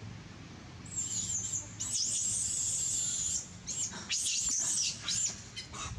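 High-pitched animal calls. The first is a long, wavering squeal or chirp, and several short calls that rise and fall follow it.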